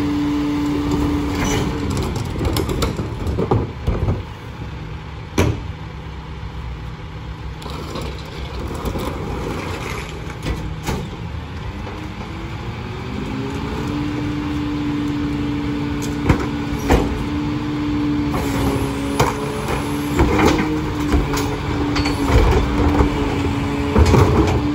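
Freightliner Econic McNeilus rear-loader garbage truck at work: engine and packer running with a steady tone that drops lower for several seconds, then rises in a rev-up about halfway through and holds. Sharp knocks and bangs of trash and containers going into the hopper come through it, most near the start and in the second half.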